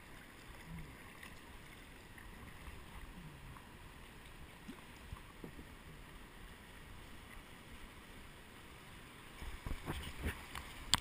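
Moving river water around a kayak on a small rapid, with a few faint paddle splashes. Near the end the sound grows louder, with low rumbling splashes and wind buffeting on the microphone as the kayak runs into broken whitewater.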